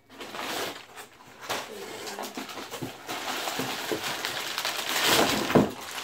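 Brown packing paper rustling as it is pulled out of a cardboard shipping box, loudest near the end.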